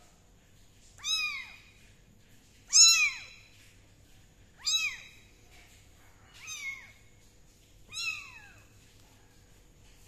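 Wet newborn kitten crying: five short, high meows, each rising and then falling in pitch, about every two seconds, the third the loudest.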